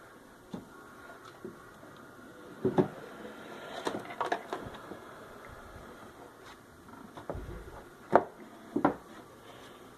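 Handling noise from a vintage tube phonograph being moved about during repair: scattered knocks and clicks with light rubbing, the sharpest knock about eight seconds in.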